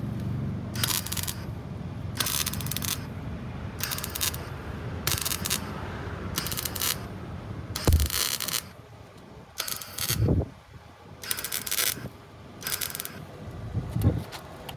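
Hand-held compressed-air tool firing in short hisses, about ten bursts roughly every second and a half, with metal clinks, scraping and a few dull knocks against the truck's steel wheel-arch panel.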